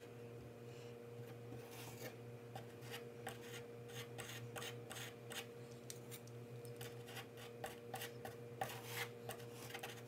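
Metal putty knife scraping and spreading wet water putty along a dented door edge: a run of short, faint, irregular scrapes and taps over a faint steady hum.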